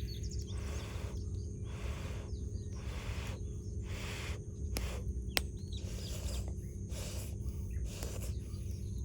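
Wood campfire crackling, with two sharp pops about five seconds in, while small birds chirp now and then over a steady low rumble.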